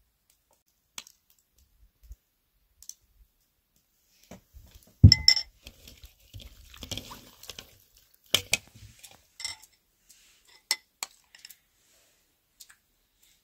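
A metal spoon clinking against bowls as marinade is spooned over raw partridges, with one louder knock about five seconds in. Hands rubbing the marinade into the birds make soft wet squelching sounds in between.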